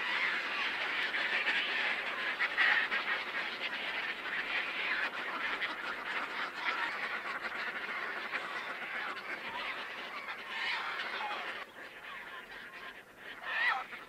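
Herring gull colony calling, many birds crying over one another in a dense, continuous din. The calling thins out about twelve seconds in, with one clearer call near the end.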